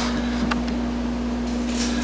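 Wood lathe's motor running with a steady hum, spinning the workpiece with no tool cutting; a few faint ticks.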